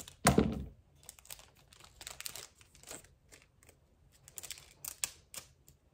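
Pokémon trading-card booster pack wrapper crinkling and rustling in the hands, with scattered short clicks. A sharp thump about a third of a second in is the loudest sound.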